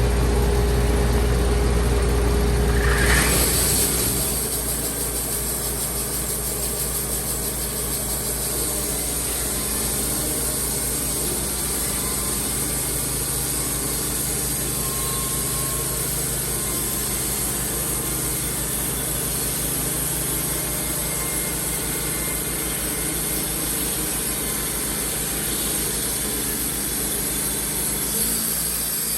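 Wood-Mizer band sawmill running while cutting a yellow pine log, a steady machine sound with a high hiss. About three seconds in the sound shifts: a deep low hum drops away and an even, steadier running takes over.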